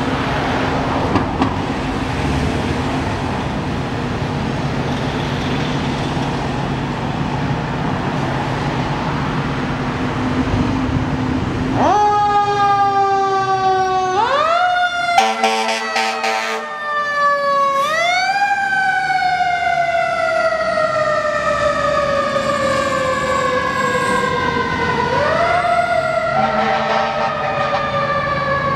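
Fire engine running as it pulls out, then about twelve seconds in a siren starts: its pitch winds up quickly and falls slowly, repeating several times.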